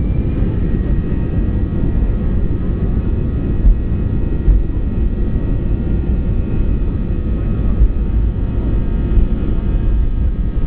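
Airbus A320 jet engines heard from inside the cabin: a steady loud rumble with a faint steady whine above it.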